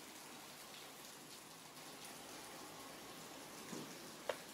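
Faint, steady outdoor hiss, with a brief low sound about three-quarters of the way through and a single sharp click shortly before the end.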